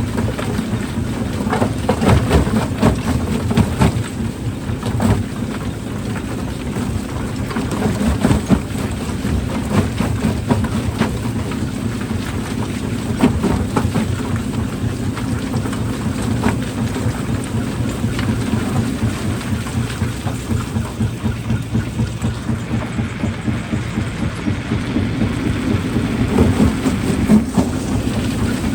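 Industrial rock crusher running under load: a steady low machine drone with rocks cracking and knocking inside it.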